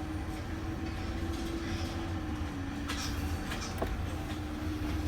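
CSX freight train rolling along under way, a steady low rumble with a steady hum and a few short clicks from the wheels near the middle.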